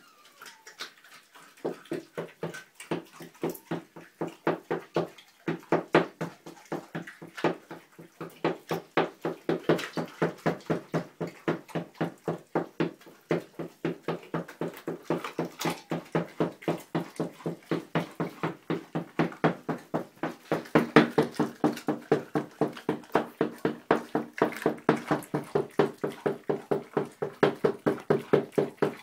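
A dog licking a whole raw chicken in a steady run of wet laps, about three a second, louder for a stretch past the middle.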